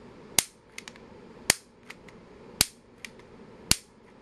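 Piezo grill ignitor clicked four times, about a second apart, each press a sharp snap that fires a spark, with fainter clicks between.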